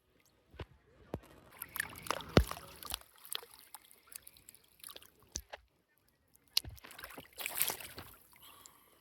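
Water sloshing and lapping around a small boat on a lake, with scattered light knocks and clatters of fishing gear being handled, loudest twice, about two and a half and seven and a half seconds in.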